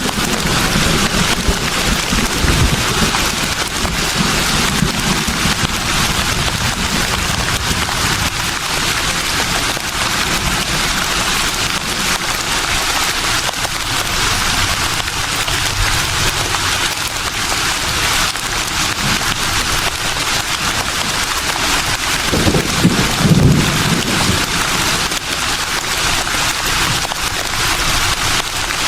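Leaves rustling steadily in a gentle breeze: a dense, even, crackly hiss. Low rumbles of wind gusts come at the start and again late on, the loudest moment.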